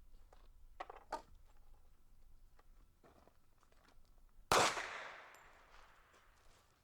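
A single gunshot about two-thirds of the way in, with its echo trailing off over a second or so. A couple of faint clicks come a second or so before it.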